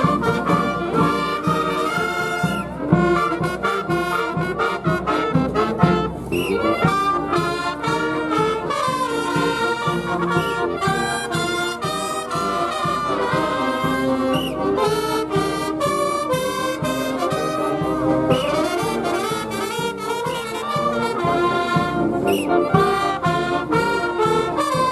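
Marching band playing a tune: brass instruments carry the melody over steady drum beats.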